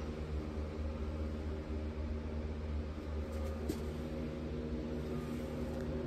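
Steady low hum of a newly installed A.O. Smith electric water heater just switched on, its heating element starting to heat the water.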